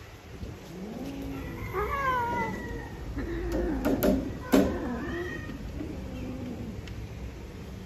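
Cats mating: a wavering, yowling caterwaul with a few higher, falling meows, from a breeding pair with the female in heat. Two or three sharp knocks about four seconds in, the last the loudest sound.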